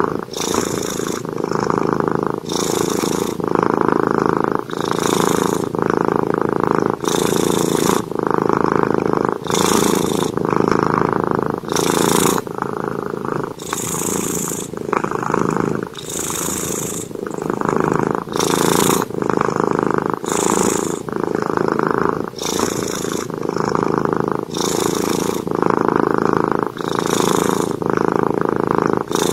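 A tabby-and-white cat purring loudly and steadily, close up, each purr swelling and easing about once a second as it breathes in and out while dozing. About every two seconds a short brushing rustle comes from a hand stroking its fur.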